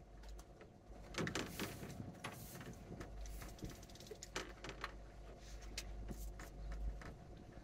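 Irregular clicks and knocks of fishing gear being handled, over a low rumble that grows stronger from about three seconds in until near the end.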